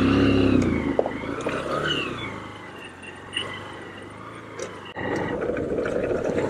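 Engines at low speed as a motorcycle is ridden slowly close past a stopped army truck. The engine sound is loud for the first second or so, drops to a quieter hum, and picks up again about five seconds in.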